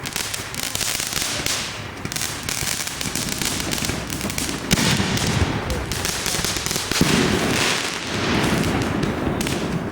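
Consumer fireworks going off: a dense, continuous crackle of many small reports, with heavier booms about five and seven seconds in.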